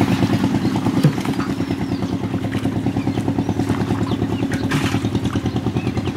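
A small engine running steadily with a rapid pulsing beat, with a single knock about a second in.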